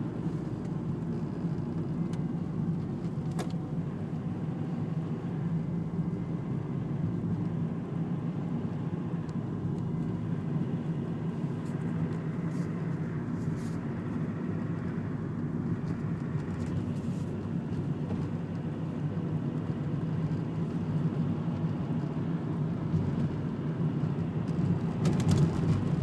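Steady road noise of a moving car heard from inside its cabin: a low hum of engine and tyres, growing a little louder near the end.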